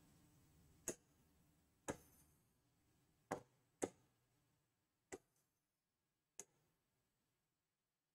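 Six sharp, short clicks at irregular intervals of about a second: a stylus tapping on a touchscreen smartboard while selecting drawing tools. The later clicks are fainter.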